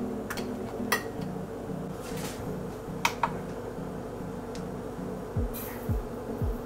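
Background music: a soft repeating synth pattern, with deep falling kick-drum beats coming in about five seconds in. A few light clinks of kitchenware sound over it, near the first second and twice around three seconds.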